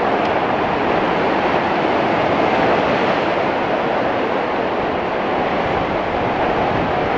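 Ocean surf surging and breaking as white water against a rock ledge: a steady, unbroken rush.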